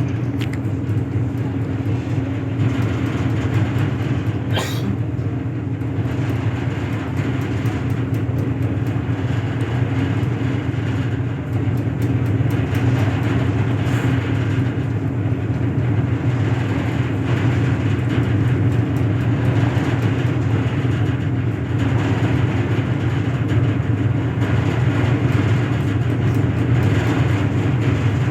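An engine running at a steady speed: a constant low drone with an even hum that does not change.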